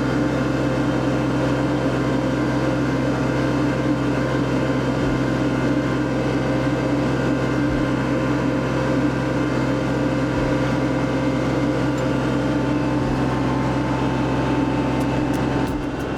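Kubota compact tractor's diesel engine running steadily at a constant speed, with a loud, even hum and no revving.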